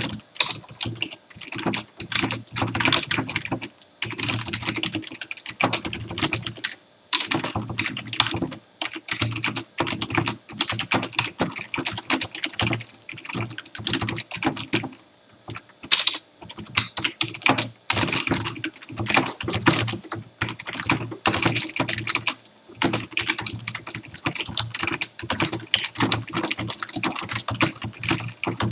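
Fast typing on a computer keyboard: rapid, irregular key clicks in runs, broken by brief pauses every few seconds, with an occasional louder keystroke.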